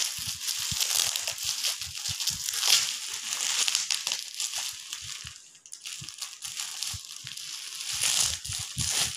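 Clear plastic wrapping crinkling and crackling as it is handled and pulled open by hand, with a brief lull a little past halfway.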